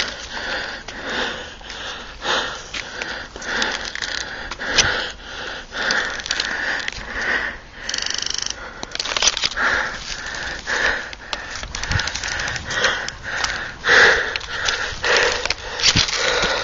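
A person breathing hard and fast, puffing in and out over and over. About eight seconds in there is a brief rapid rattle.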